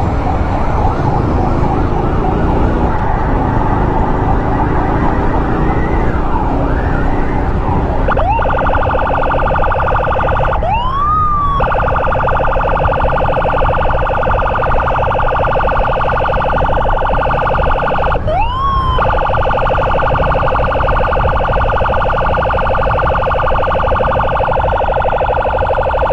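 Electronic emergency siren sounding continuously. For the first several seconds it is a fast wavering wail. About eight seconds in it switches to a steady, rapidly pulsing tone, broken twice by a short rising whoop.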